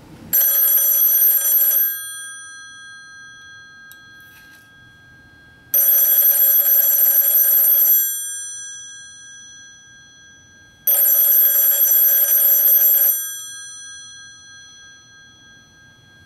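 Western Electric C4A telephone ringer, the two-gong bell of 500-series phones, ringing in three bursts of about two seconds each, a few seconds apart. The gongs ring on and die away after each burst, and a fourth burst starts at the very end.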